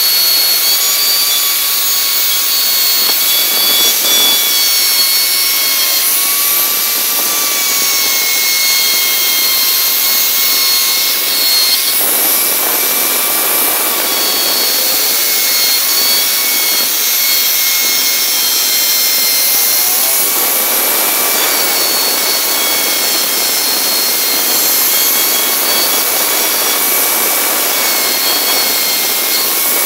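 Electric plunge router running at full speed, its bit carving into hardwood: a steady high whine over the hiss of the cut. The whine's pitch wavers slightly as the bit takes the load.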